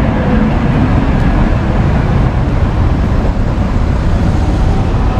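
An old-style city tram approaching, a loud, steady rumble with no break.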